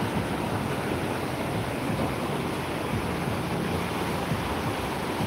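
Muddy floodwater pouring across a road in a steady rush.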